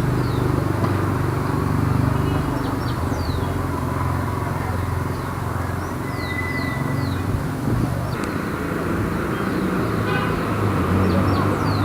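Light city traffic: vehicles passing with a steady engine and tyre rumble, and short high chirps scattered over it.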